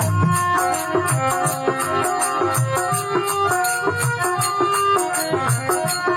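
Instrumental passage of Rajasthani devotional folk (bhajan) music: a melody in held notes over low drum strokes, with a quick, even beat of high percussion.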